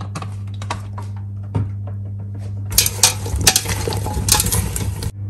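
Cut potatoes and carrot sticks coated in oil and spices being tossed by hand in a metal pot: a few light clicks at first, then from about three seconds in a dense clatter of the pieces against the metal that stops just before the end. A steady low hum runs underneath.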